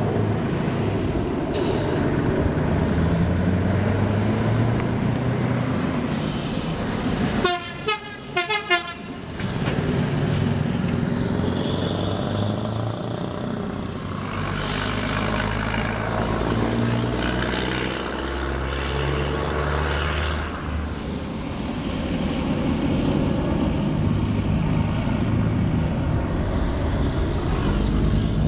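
Scania R580 V8 and DAF CF tractor-trailers roaring past under extra throttle, their diesel engines working hard. A truck air horn blows briefly about eight seconds in.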